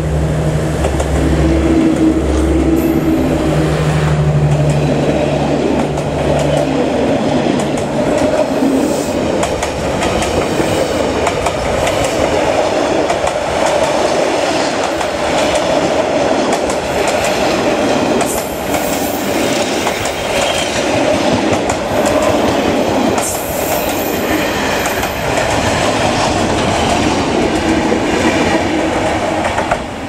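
Vietnam Railways D20E diesel locomotive passing close, its engine humming steadily for the first several seconds. The passenger coaches then roll by with a steady rumble and clickety-clack of wheels over the rail joints, and brief high wheel squeals about two-thirds of the way through.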